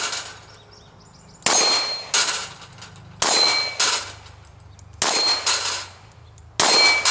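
9mm pistol fired in quick pairs, each shot a sharp metallic clang with a ringing tone, as from bullets striking steel targets. Four such pairs come at an even pace, about every second and a half.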